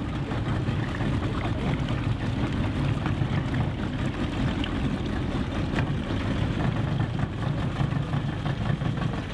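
Small outboard motor running steadily at low speed, a low fluttering drone pushing a boat through calm water.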